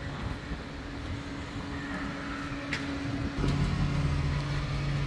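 A motor vehicle engine running steadily, with a louder, lower hum coming in about three and a half seconds in and a sharp click a little before.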